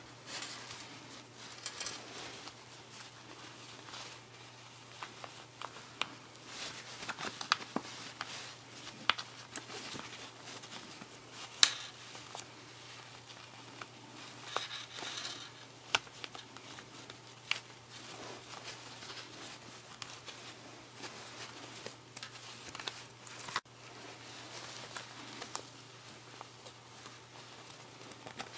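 Cloth rustling and small scattered clicks and taps as a small sewn fabric parka is handled and fitted onto a plush toy bear, over a faint steady low hum.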